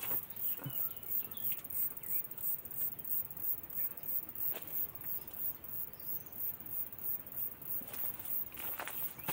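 High-pitched insect chirping, an even pulse of about three beats a second, with a few faint bird chirps.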